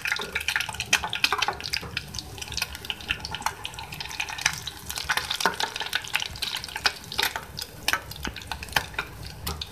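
Boiled eggs frying in hot oil in a metal karahi: a steady sizzle with dense crackling, mixed with the scrape and clink of a slotted spoon against the pan as the eggs are lifted out.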